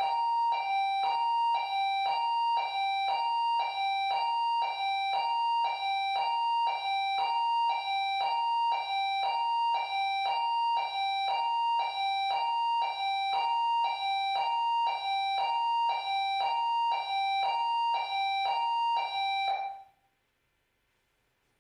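Alarm output sounding a repeating high-low two-tone chime, the two notes alternating evenly, until it cuts off suddenly near the end.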